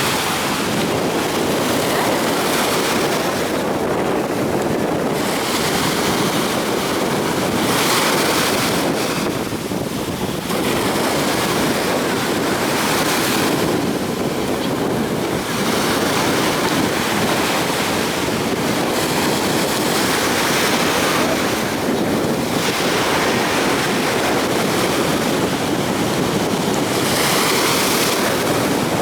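Storm surf breaking on the shore: a steady rushing wash with a louder wave crashing every few seconds.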